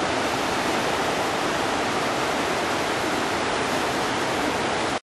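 River rapids rushing, a steady even roar of water.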